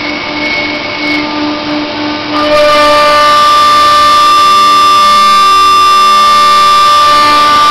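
CNC router spindle running with a steady, high whine made of several fixed tones, getting louder, with more tones, about two and a half seconds in.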